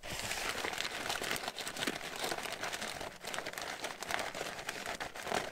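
White paper wrapping around a takeaway steak sandwich crinkling and rustling as it is handled, a dense run of crackly rustles that starts suddenly.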